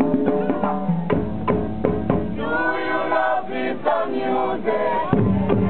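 A group of voices singing together in chorus over a beating drum. The drum drops back about halfway through, leaving the voices clearer, and comes back in near the end.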